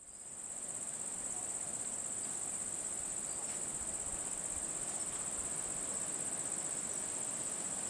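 A steady, high-pitched chorus of insects, fading in over the first second.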